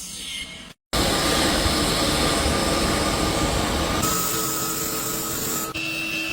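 CNC lathe machining noise: a steady hiss of cutting, broken by abrupt changes and a brief drop to silence near the start. A steady whine comes in over the noise from about four seconds in.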